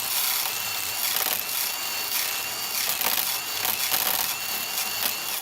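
Battery power tool running in three stretches against a broken Pittsburgh Pro 3/8-inch ratchet, with a faint whine and irregular clicking and grinding from the ratchet's failed mechanism, which has given out at 220 ft-lb. The sound cuts off abruptly at the end.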